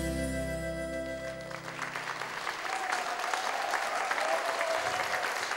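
The song's final held chord fades out over about two seconds, and the audience's applause takes over as steady clapping.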